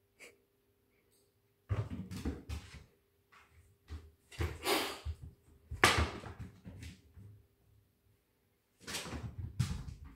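Two house cats play-fighting on a hard floor: several bursts of scuffling and thumps, with a sharp knock about six seconds in.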